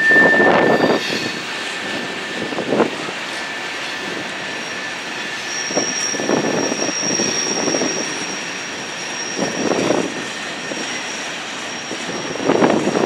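Freight train rolling past, its boxcars' wheels making a steady rumble on the rails with louder clatter every few seconds. A thin, high, steady squeal comes in about halfway.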